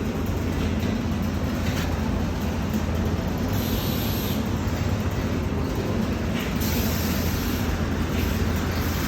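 Steady low drone of a vehicle with road noise, holding level without change.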